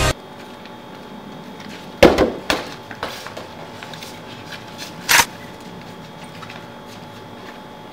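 A rubber ball struck hard about two seconds in, ringing briefly, then bouncing a few times on tile paving with smaller knocks; a second sharp hit comes a few seconds later.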